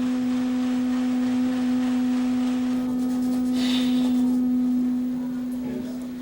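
Clay ocarina holding one long, steady low note with a pure, flute-like tone, fading out near the end.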